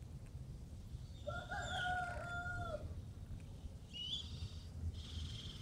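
A rooster crowing once, one long call of about a second and a half that rises at the start and drops away at the end. Short high chirps of small birds come before and after it, over a steady low rumble.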